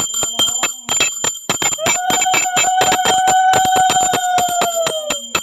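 Brass puja handbell rung fast and without a break. From about two seconds in, a conch shell is blown in one long steady note that sags in pitch as it dies away shortly before the end.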